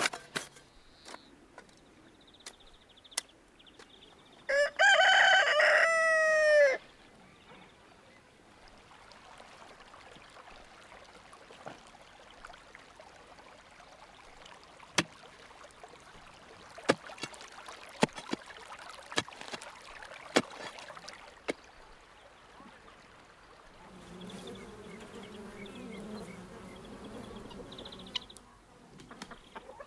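A rooster crowing once, loud and about two seconds long, a few seconds in. Sharp clicks and knocks follow at intervals, and a low steady hum lasts a few seconds near the end.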